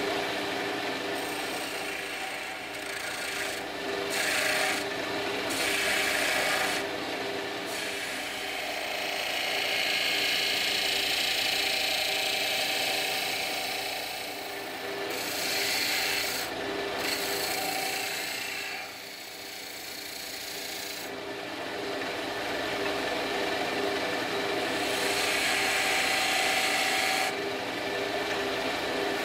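Wood lathe running with a steady motor hum while a flat turning chisel cuts and scrapes the spinning horse-chestnut knob blank in repeated hissing passes of one to several seconds.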